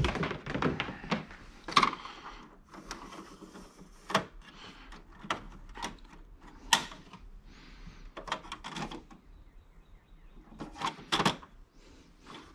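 Irregular plastic clicks and knocks as the paper trays on a Canon Pixma TR4520 printer are opened and handled.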